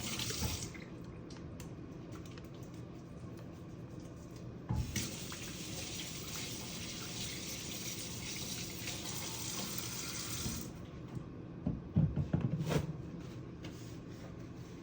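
Sink tap running while hands are washed: the water shuts off just after the start, comes on again about five seconds in and runs for about six seconds before being turned off. A few knocks follow near the end.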